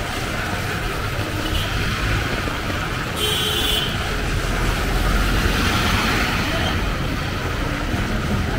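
Heavy rain falling steadily in a street, mixed with traffic. A vehicle's low rumble swells a little past the middle, and a brief high-pitched squeal sounds just over three seconds in.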